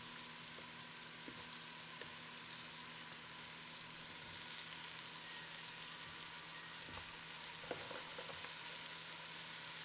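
Flour-dredged beef cubes sizzling faintly in hot olive oil in a Ninja Foodi pressure cooker's inner pot as they sauté, with a few light ticks as pieces go in. A steady low hum runs underneath.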